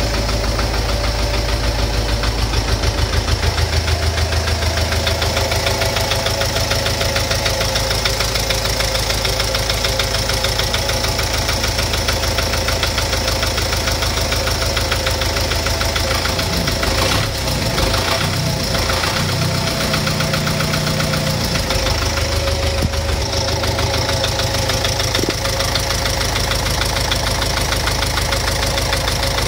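Car engine running at idle with a steady, rhythmic knock from inside the engine. The low engine note shifts briefly a little past halfway.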